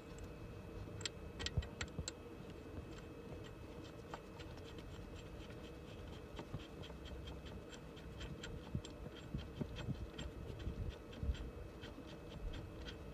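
Light clicks and taps of hand tools and metal parts being handled, scattered at first and coming thicker and faster in the second half, over a faint steady hum.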